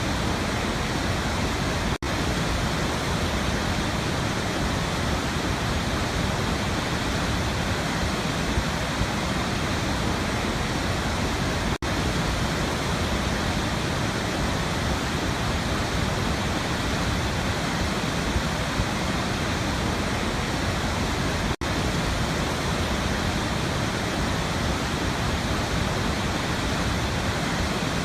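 Steady rush of a waterfall, an even roar of falling water, broken by a momentary dropout three times, about every ten seconds.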